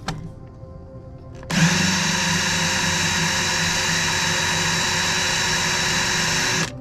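Power drill running steadily for about five seconds, starting abruptly a second and a half in and cutting off just before the end, working at screws whose heads are stripped.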